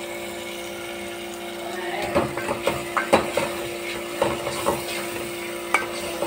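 Frying masala sizzling steadily in an aluminium pot; about two seconds in a spoon starts stirring it, with irregular scrapes and knocks against the pot.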